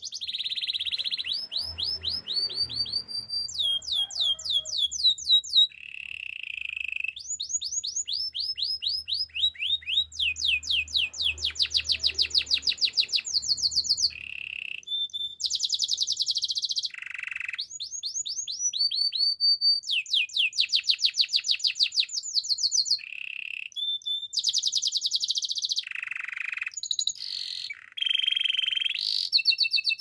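White domestic canary singing its full song: fast trills of quickly repeated sweeping notes, broken now and then by short buzzy held notes.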